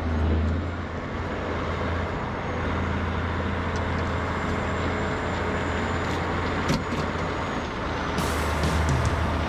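Large farm tractor with dual rear wheels driving past on the road, its engine a steady low drone.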